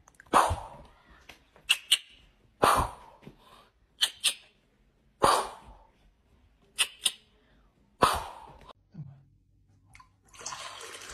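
Finger snaps in quick pairs alternating with single louder hand claps, repeated about every two and a half seconds, to call a kitten. Near the end, water starts trickling from a bottled-water pump into a glass.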